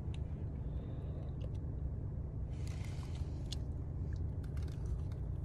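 Biting into a chicken biscuit sandwich and chewing it, with a few soft crumbly bites and small mouth clicks. Underneath is a steady low rumble from the car the eater is sitting in.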